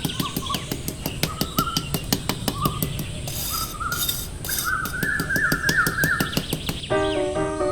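Birds chirping, short rising calls and a quick trill, over a steady fast ticking beat. Near the end it cuts abruptly to a melodic music track of plucked or struck notes.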